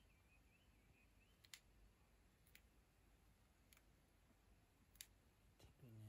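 Near silence with five faint, sharp clicks, roughly a second apart, the loudest about five seconds in.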